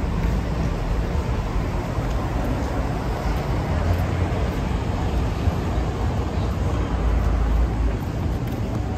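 City street ambience: a steady rumble of road traffic, with the low end fluctuating unevenly throughout.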